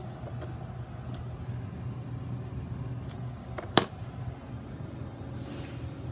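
Mr. Coffee BL5 4-cup drip coffee maker running with a steady hum and rumble, and one sharp click nearly four seconds in.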